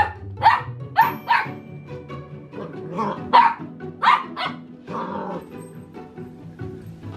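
Young mini goldendoodle puppy barking at a rubber chew toy: about nine short, high barks, mostly in quick pairs, stopping about five seconds in.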